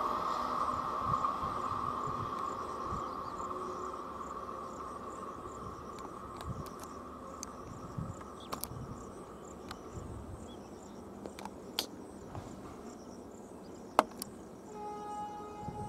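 A passing express train's coaches running on the rails, the rumble fading away over the first ten seconds, with crickets chirping steadily throughout. A few sharp clicks stand out later, and a train horn starts sounding near the end.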